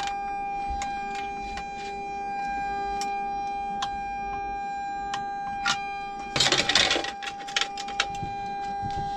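Torque wrench ratcheting in irregular clicks as the extract fan's bottom duct clamp is tightened, followed at about six and a half seconds by a clatter of metal hardware being handled. A steady high-pitched hum sounds throughout.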